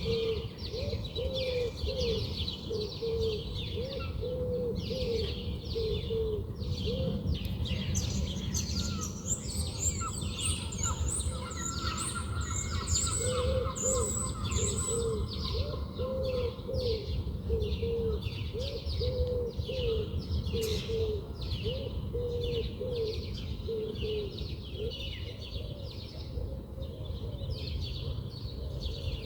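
Birds calling: many short high chirps throughout, with runs of repeated low arched notes at an even pace. Under them is a steady low rumble.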